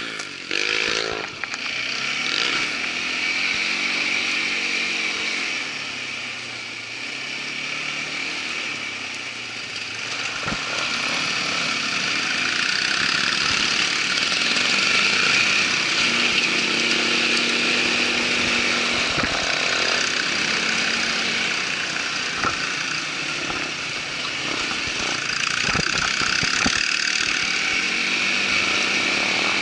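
Irbis ATV 200 quad bike's engine running as it rides a rough trail, its pitch rising and falling with the throttle. Scattered knocks are heard over the steady engine noise.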